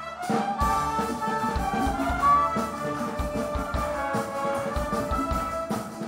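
A youth orchestra playing lively music live, with violins, cellos and double basses and a steady, regular low beat.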